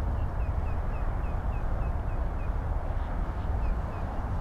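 A small bird calling with a quick series of short, high, down-slurred chirps, about four a second, stopping after about two and a half seconds and giving two more near the end, over a steady low rumble.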